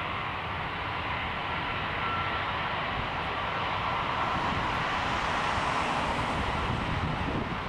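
Jet engines of a four-engined airliner running steadily, a continuous rushing whine centred in the middle range. It gets a little louder about two seconds in and swells again a few seconds later.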